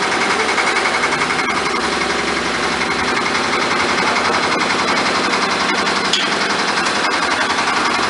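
Concrete mixer's engine running with a rapid, even pulsing as it drives the hydraulic hopper up.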